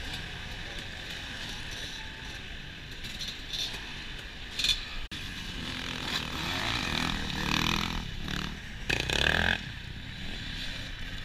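Dirt bike engines revving as several off-road motorcycles ride off from a race start, with the sound breaking off briefly about halfway through and picking up again.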